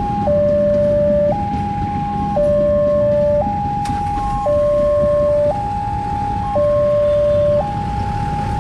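Electronic railway level-crossing alarm sounding a two-tone warning: a higher and a lower tone alternate, each held about a second, repeating steadily.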